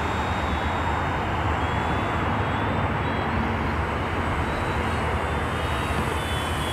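Electric RC aerobatic planes flying overhead, among them a Dynam Sbach 342 with its 3220-size 600 kV brushless motor: a steady motor-and-propeller whine with faint small shifts in pitch, over a steady low rumble.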